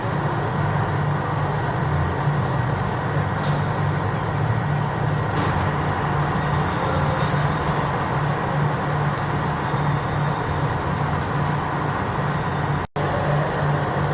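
Steady motor-vehicle engine hum with road noise, a low pulsing drone under a constant hiss. It cuts out for an instant near the end.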